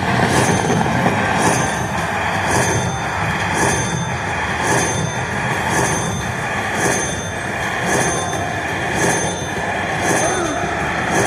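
Slot machine sounds over the dense din of a casino floor, with a bright chime-like accent repeating about once a second.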